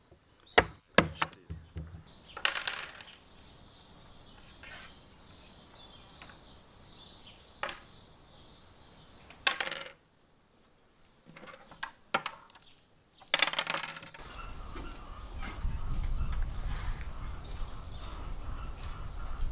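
Dice clattering onto a backgammon board and pieces clacking, in a handful of sharp separate clicks and rattles. About two-thirds of the way through, a steady low rushing noise takes over.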